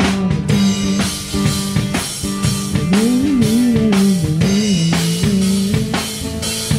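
Live band playing: electric guitar over a drum kit with bass drum and snare keeping a steady beat.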